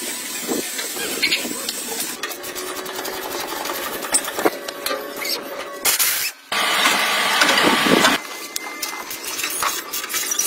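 Tool and metal noise from work on a rusty tractor body: dense clicking, rattling and scraping, which cuts off sharply about six seconds in and then starts again.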